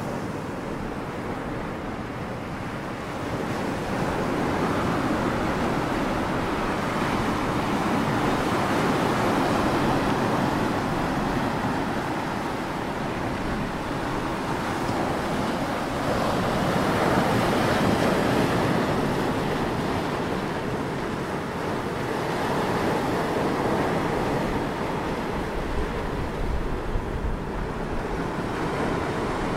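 Sea waves breaking and washing over a flat rocky shore, the surf growing louder about three seconds in and swelling several times, with wind on the microphone.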